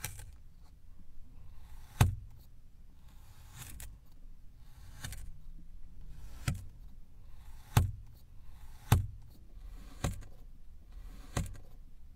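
A plastic cross-shaped cutter pressed down through kinetic sand cylinders one after another. Each cut gives a soft scrape of sand, ending in a sharp tap as the cutter meets the surface beneath, about eight times at one- to two-second intervals.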